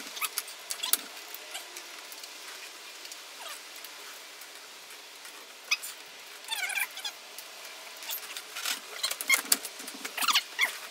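Plastic dashboard trim and wiring connectors on a Mazda MX-5 Miata being worked loose by hand: scattered clicks and knocks, with short squeaks of plastic rubbing about two-thirds of the way in and again near the end.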